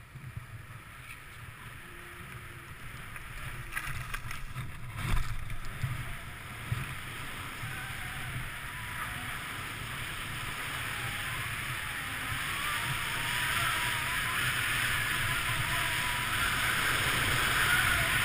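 Skis sliding over packed snow with wind rushing over the microphone, the hiss growing steadily louder as speed builds. A few short knocks around four to five seconds in.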